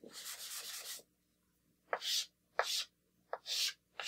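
A wooden-backed eraser rubs across a chalkboard for about a second. Then chalk draws on the board in several short scraping strokes.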